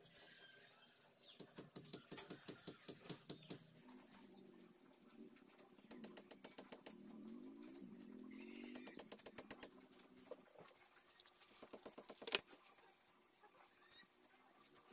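Faint rapid clicks and plastic rattles from a hot glue gun being handled and its trigger squeezed as it feeds glue around a rocker switch.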